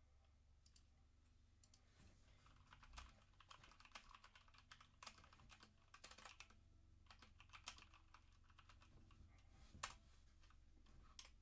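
Typing on a Motospeed CK61 60% mechanical keyboard with Otemu red linear switches: a quiet, irregular patter of keystrokes starting about two seconds in, with one sharper key strike near the end.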